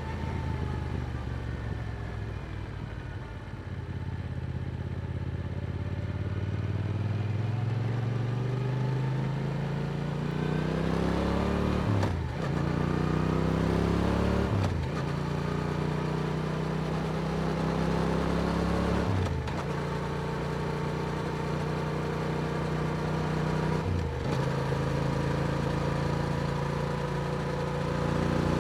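Yamaha R7's parallel-twin engine through an Akrapovic exhaust under way, running at low revs at first, then pulling with rising pitch. It shifts up four times, each shift a brief break and drop in pitch.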